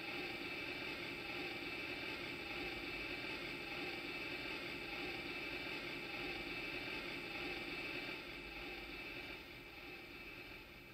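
Electronic engine sound effect from the Hasbro Smugglers Run Millennium Falcon toy, played through its small built-in speaker while the engine lights glow: a steady hum that steps down and fades after about eight seconds.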